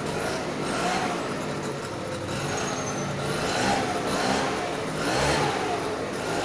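A small engine running, its pitch rising and falling as it speeds up and slows down.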